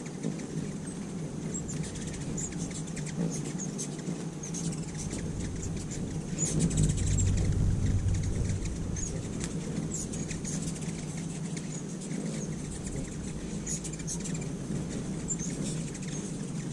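Ruby-throated hummingbirds giving many short, high chips and squeaky twitters, scattered and overlapping, over a steady low hum. A louder low rumble swells about six seconds in and fades by about eight.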